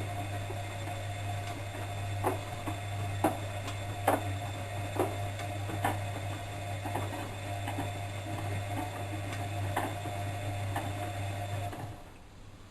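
Bosch WFM3010 washing machine tumbling its drum during a wash: a steady motor hum with knocks about once a second. Near the end the motor stops suddenly as the drum pauses.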